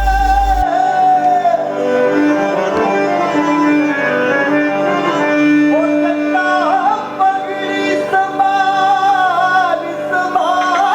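Background music with a sung melody over sustained instrumental notes.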